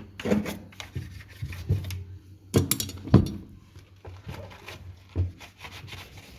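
Scrubbing inside an automatic washing machine: irregular rubbing strokes with a few sharper knocks against the machine, the loudest two close together midway.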